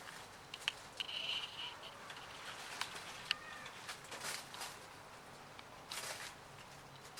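Kittens moving about, with scattered light taps and rustles and a short high squeak about a second in.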